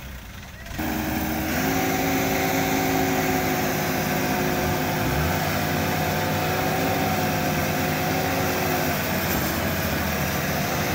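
Combine harvester engine running steadily, coming in abruptly about a second in.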